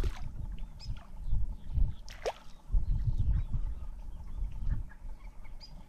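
Water washing and gurgling against shore rocks in uneven low surges, with a short falling whistle about two seconds in.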